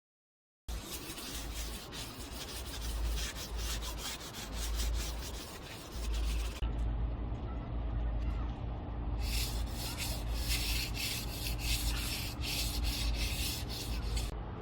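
Bosch electric drill boring into a surface: a harsh, rapid rasping that starts sharply about a second in, eases to a steadier motor hum for a few seconds in the middle, then bites again until near the end.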